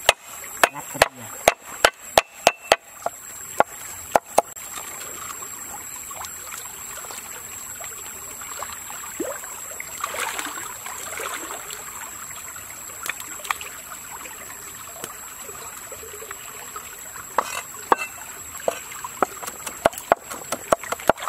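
Garlic being crushed and chopped with a cleaver on a chopping board: a quick run of sharp knocks in the first few seconds, sparser cuts through the middle, and another run of knocks near the end, over a stream running steadily underneath.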